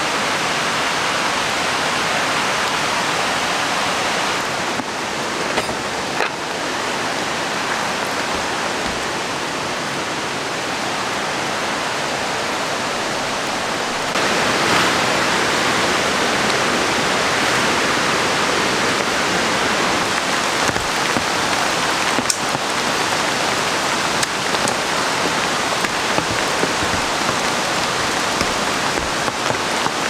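Waterfall rushing steadily, mixed with rain, growing louder about halfway through, with a few small taps.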